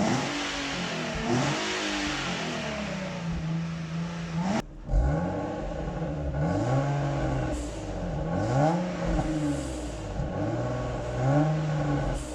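Nissan Fairlady Z 380RS's 3.8-litre V6 revved again and again through its factory Nismo exhaust, the revs rising and falling every second or two. There is a cut about four and a half seconds in.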